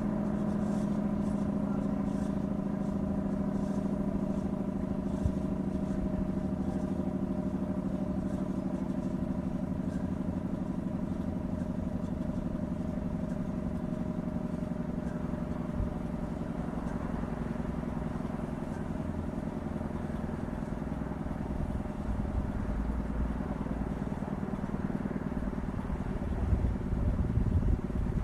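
Sterling M-10 fire siren winding down after a short alert, its low tone slowly falling in pitch and fading. A low rumble grows louder near the end.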